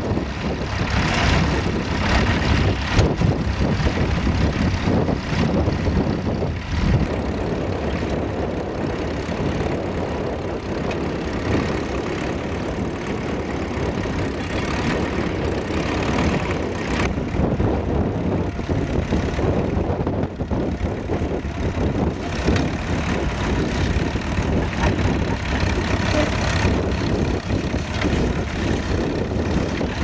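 Small vintage tractor engines running steadily under load as they pull mounted ploughs through stubble.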